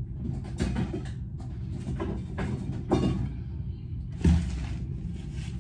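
Several short knocks and rustles over a steady low rumble, with a louder thump about four seconds in.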